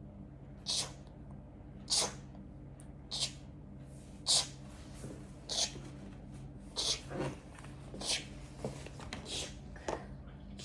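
A series of short, breathy, hissing mouth noises, about one a second, made as storytelling sound effects for going through the forest.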